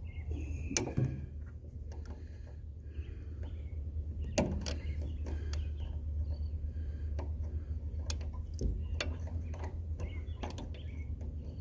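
Scattered clicks and knocks of hand tools on metal while the fuel pump on a diesel generator is worked on, over a steady low rumble.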